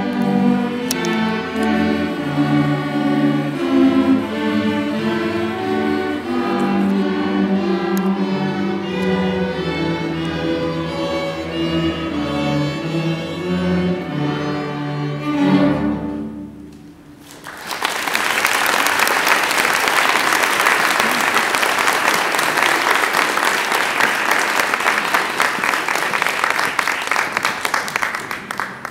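Sixth-grade string orchestra of violins and cellos playing the closing bars of a piece, ending on a loud final chord about 16 seconds in. After a brief pause the audience applauds.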